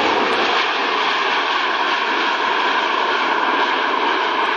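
Jet engines of a Boeing 737-800 airliner running loud and steady during its landing rollout on the runway: a dense, even rushing noise with a faint steady whine.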